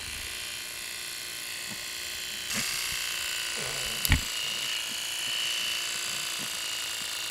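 Electric pet clippers running steadily while shaving through a cat's matted fur, with a steady hum. The hum gets louder about two and a half seconds in, and there is one sharp knock about four seconds in.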